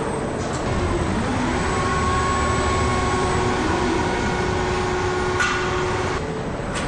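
Automated electric-motor stator assembly machinery running with a steady mechanical hum and held whining tones. A servo whine rises about a second and a half in, and there are sharp clacks near the end.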